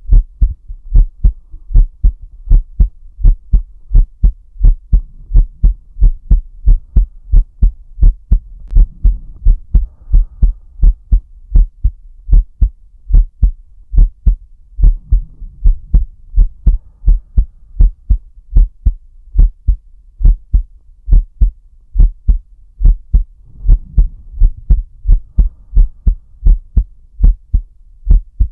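A man's heartbeat heard close up through the chest: a steady run of low double thumps (lub-dub), about one beat a second. Slow, deep breaths come in as soft swells of air noise every several seconds.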